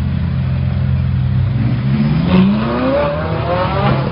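Sports car engine running low and steady, then revved with its pitch rising about halfway in, and revved again near the end.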